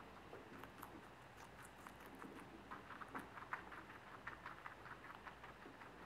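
Guinea pig eating from a plastic bowl: faint, quick, irregular crunching clicks of its chewing.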